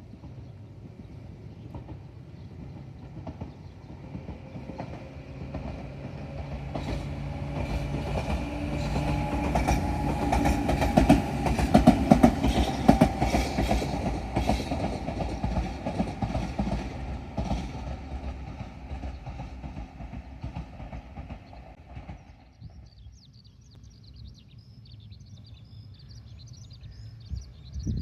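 Tobu 10000-series electric train passing by. The sound builds over several seconds and peaks with a rapid clickety-clack of wheels over rail joints and a steady motor hum, then fades away. High, repeated chirping is heard in the last few seconds.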